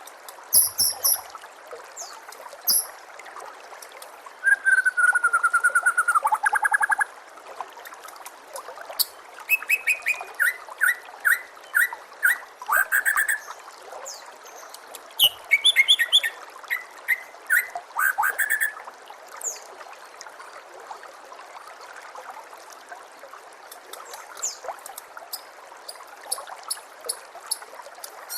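White-rumped shama (murai batu) singing a varied song of whistles, trills and fast runs of repeated notes, in bursts with short pauses between, over a steady trickle of running water.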